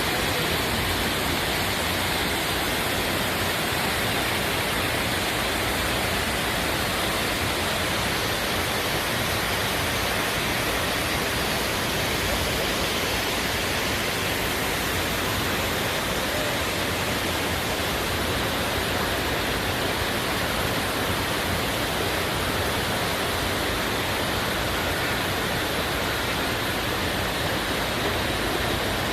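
Indoor artificial waterfall, water falling and splashing into a pool: a steady, unbroken rush.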